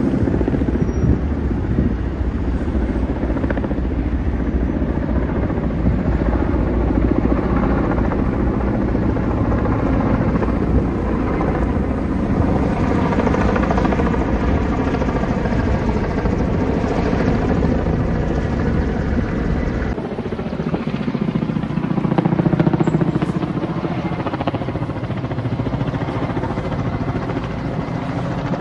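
Helicopter flying overhead, a steady drone of rotor and engine with a low rumble beneath. The sound changes abruptly about twenty seconds in, where the recording cuts to another spot, and the helicopter drone carries on.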